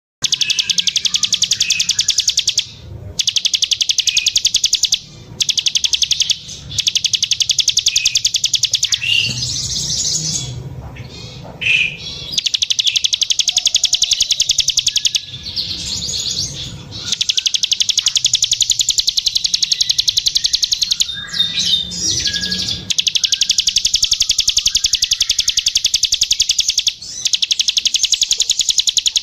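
Plain prinia (ciblek sawah) singing strongly: long, very fast, high ticking trills, each several seconds long, repeated after short breaks.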